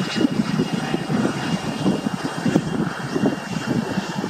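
Distant Airbus A340-300 with four CFM56-5C4 engines running at taxi power after landing: a rough, fluttering rumble with a faint steady high whine above it.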